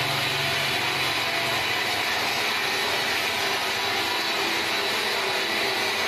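Large horizontal band sawmill running, its blade cutting through a big hardwood beam: a steady whirring hiss. A low hum fades out in the first second or two.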